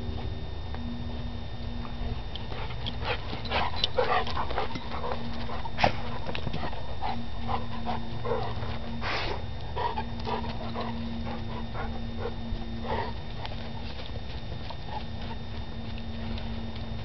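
Dogs sniffing around, a run of short sniffs and clicks that is busiest in the middle, with one sharper click about six seconds in, over a steady low hum.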